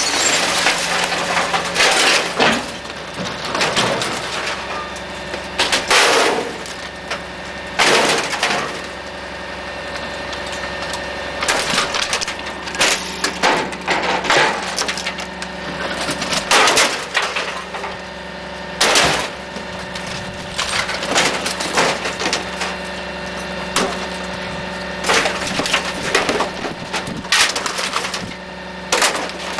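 Garbage truck's compactor crushing junk: repeated sharp cracks, snaps and breaking of plastic, wood and glass, every few seconds, over the steady hum of the truck.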